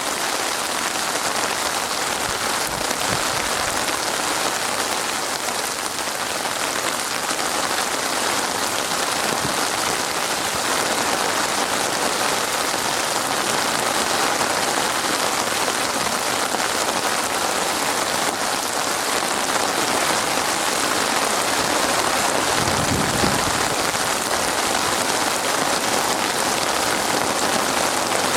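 Steady rain falling, a dense, even hiss of drops. A brief low rumble comes about three-quarters of the way through.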